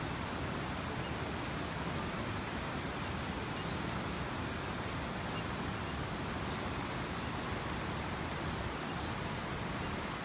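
Steady rushing of a river's flowing water, an even hiss with no splashes or breaks.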